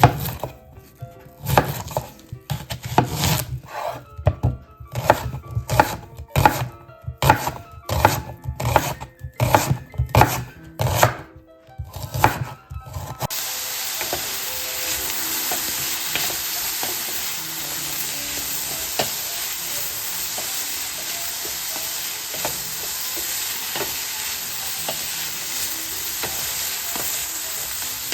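Vegetables scraped across a grater in rhythmic strokes, about two a second. About halfway through this stops abruptly and gives way to oil sizzling steadily in a frying pan.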